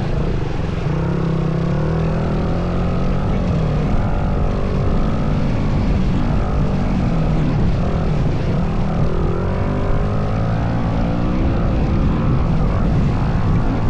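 Kawasaki KX250 dirt bike engine running while being ridden, its pitch rising and falling with the throttle over a steady rush of noise.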